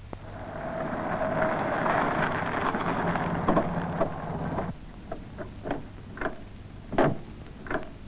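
Ford Anglia car engine running as the car pulls up, cutting off abruptly about four and a half seconds in; then a scattered run of short, sharp taps and clicks.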